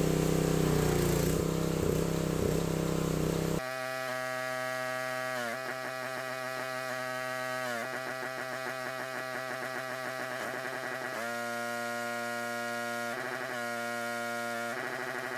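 Gas pressure washer engine running steadily for about three and a half seconds, then cut off by background synthesizer music with stepping and gliding notes for the rest.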